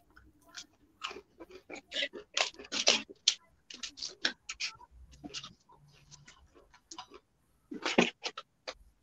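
Crunching and chewing mouthfuls of Devil's Popcorn, a chili-seasoned popcorn: irregular crisp crunches, loudest about three seconds in and again near the end.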